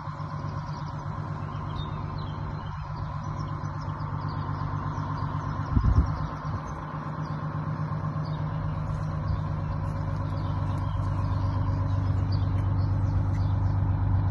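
Diesel engine of a 1948 Greyhound Silversides bus idling steadily, growing louder toward the end. A short bump on the microphone comes about six seconds in.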